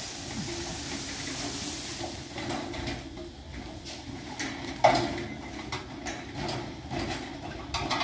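Leafy bamboo top rustling as it is dragged over dry leaf litter, then scattered light knocks and clinks, the sharpest about five seconds in.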